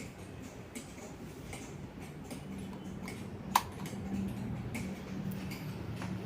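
Inagiku 56-inch industrial ceiling fan running, its motor giving a low hum, with a light click repeating a little more than once a second and one sharper click about halfway through.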